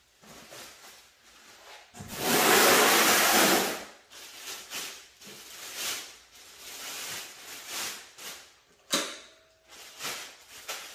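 Unboxing handling noises from a plastic-wrapped electric scooter and its cardboard shipping box. A loud, noisy scrape about two seconds in lasts nearly two seconds; after it come scattered rustles of plastic wrap and light knocks, with a sharp click just before nine seconds in.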